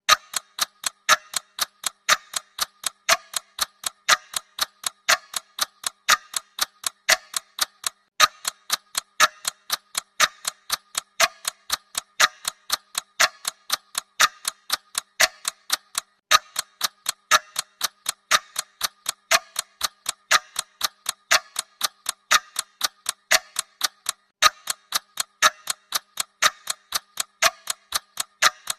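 Clock ticking: an even run of sharp ticks, several a second, with a louder tick about once a second.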